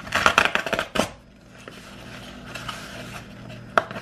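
A shipping box being opened by hand: a dense burst of crackling, scraping and tapping on the packaging in the first second, ending in a knock, then faint rustling and a single sharp click near the end.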